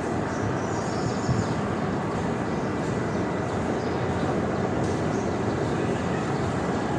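Steady wash of sea surf, with a few faint high bird chirps about a second in.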